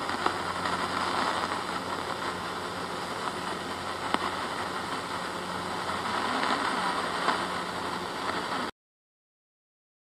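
Portable AM radio tuned to 1242 kHz giving steady static and hiss with a low hum, the station barely receivable: its AM signal has been moved to a more distant backup transmitter after its usual transmitter lost power. The sound cuts off abruptly near the end.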